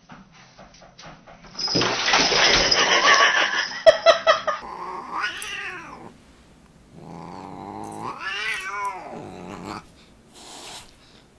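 A Siamese cat yowling at a dog, two drawn-out calls that rise and fall in pitch. Before them comes a louder, harsh, noisy stretch of about two and a half seconds.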